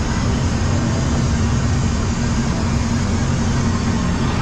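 A steady low rumble with an even hum, like a ride vehicle or machinery running, with no sudden events.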